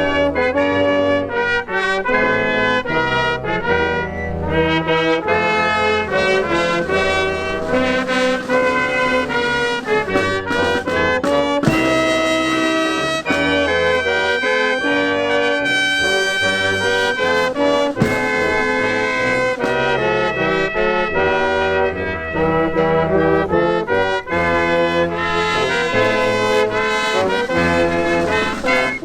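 Brass band music: trumpets and trombones playing sustained chords over a low bass line.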